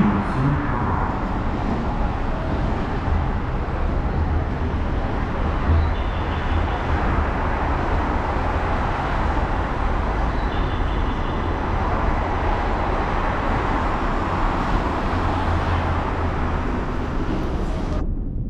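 Electric commuter train running, heard from inside the passenger car: a steady rumble of wheels on track with a hiss of running noise.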